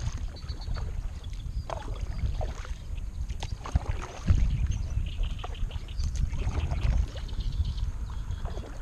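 Kayak paddle strokes: the blades dip into the water and drip, giving scattered splashes and drips over a steady low rumble.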